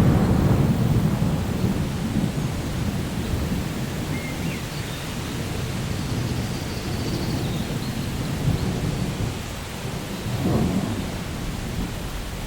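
Steady rain with rolling thunder; the low rumble is loudest at the start and slowly eases, then swells again briefly about ten seconds in.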